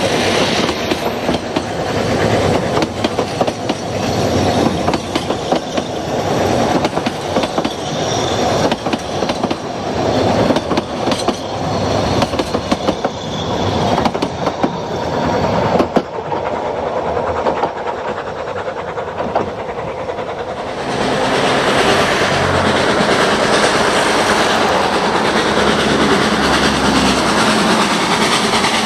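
Narrow-gauge train passing, its wheels clicking irregularly over the rail joints. About two-thirds of the way through, the clicking gives way to a steady, louder rushing noise.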